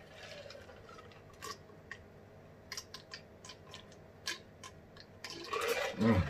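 A person drinking in long swallows from a large plastic mug: quiet gulping with scattered soft clicks of throat and mouth. About five seconds in comes a louder breath, ending in a short falling voice sound as the mug is lowered.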